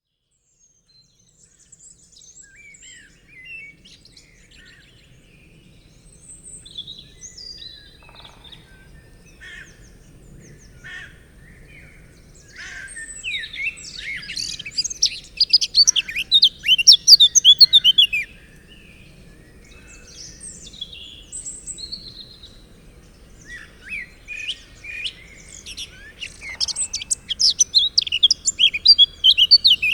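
Eurasian blackcap singing: two loud bursts of fast, varied warbling, one in the middle and one near the end, with scattered softer bird calls between them over a faint low rumble.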